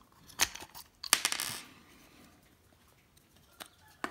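Hard plastic clicking and scraping as the inner part of a 7-way round trailer connector socket is worked out by hand: a sharp click about half a second in, then another click with a short scraping rasp, and a couple of faint ticks near the end.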